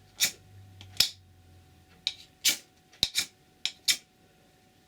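A ferrocerium firesteel rod scraped hard against the squared spine of a carbon-steel knife, about seven quick, rasping strokes, several of them bunched near the end. The rod still has its factory black coating, which has to be scraped off before it throws sparks.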